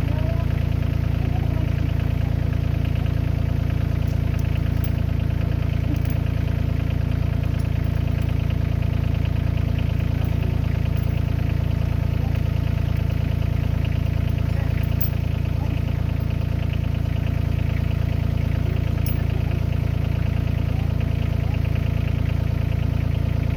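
Kioti CK2610 tractor's three-cylinder diesel engine idling steadily, a low even drone.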